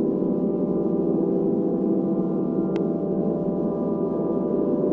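Sustained gong-like ambient drone: many steady tones ringing together without a break. One sharp click about three seconds in.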